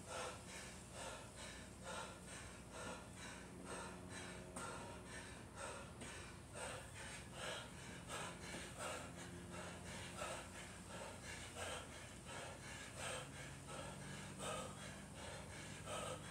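A man's heavy breathing, a sharp breath about every half second, from hard exertion while doing goblet squats with a heavy dumbbell late in a long workout.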